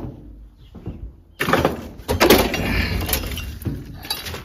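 Demolition debris of broken drywall and wood crashing and clattering into a plywood-walled bin. It starts suddenly about a second and a half in as a loud crash with several sharp impacts, then dies down into scattered clatter.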